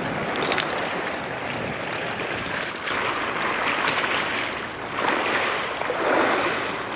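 Sea waves washing against a breakwater, with wind on the microphone. The wash swells several times, about halfway through and twice more near the end.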